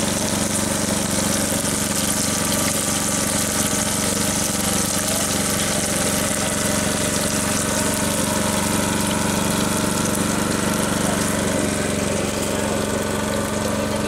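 Bacon and sliced sausage sizzling on a Blackstone flat-top griddle, a steady hiss, over a steady low engine-like hum.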